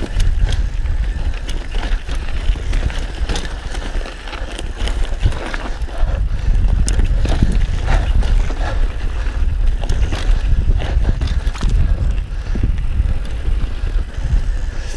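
Mountain bike riding fast down a rough dirt trail: a steady low rumble of wind and tyres on the ground, broken by frequent clatter and knocks from the bike over bumps.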